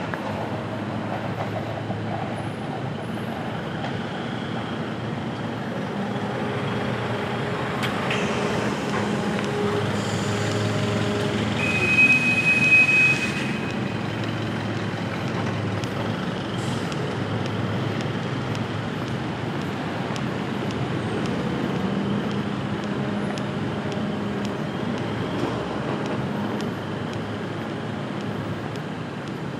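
Steady city traffic noise of passing vehicles, with a brief high squeal about twelve seconds in, the loudest moment.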